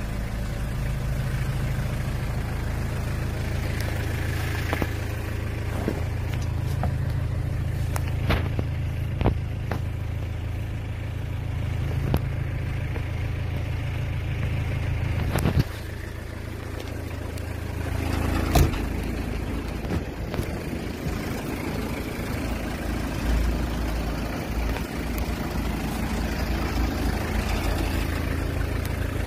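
2001 Hyundai Porter mini truck's diesel engine idling steadily, with a few sharp knocks and clicks over it, the loudest about halfway through and another a few seconds later.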